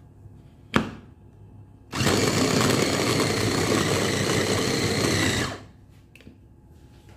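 Electric mini food chopper with a glass bowl running to mince raw chicken thigh fillet: a steady motor-and-blade noise for about three and a half seconds that then stops. A single sharp knock comes about a second before it starts.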